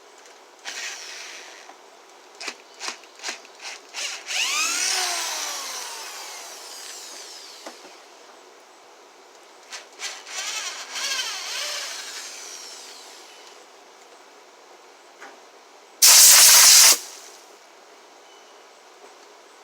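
A power drill driving screws into wood in two runs, its pitch falling as each run goes on, after a few sharp knocks. Near the end comes one loud, harsh burst about a second long.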